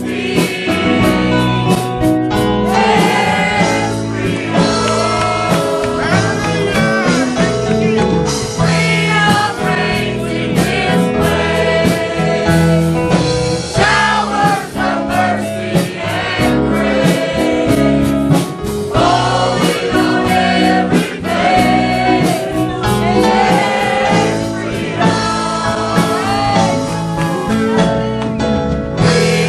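Live gospel worship music: a singing congregation or choir with a band, a steady beat throughout.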